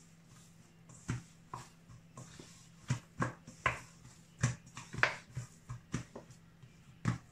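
Hands kneading a soft flour dough in a stainless steel bowl: about a dozen irregular short thuds and clicks as the dough is pressed and turned against the metal.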